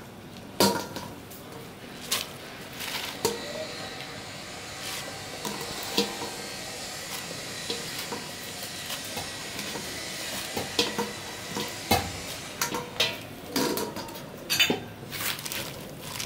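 A metal utensil clinks and scrapes against a pan in irregular knocks, over a steady hiss of food sizzling in hot oil. The knocks come thicker toward the end.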